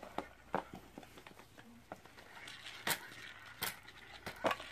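Scattered light clicks and taps of small plastic friction toy trucks being handled and taken apart, their snap-on bodies pulled off the chassis.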